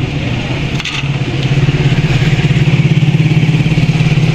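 A small engine running steadily with a fast, even pulsing beat, growing louder about a second and a half in. A single sharp click about a second in.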